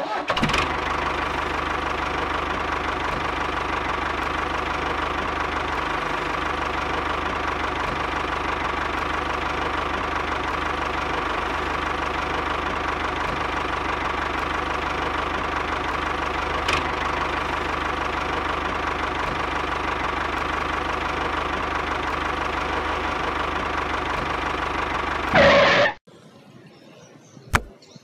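Tractor engine running steadily at an even pitch, rising to a brief louder burst about 25 seconds in and then cutting off abruptly. A single sharp click follows near the end.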